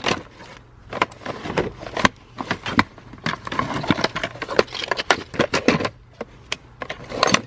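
A car seat belt and its metal hardware being pulled back through a plastic trim panel: irregular clicks, rattles and scraping.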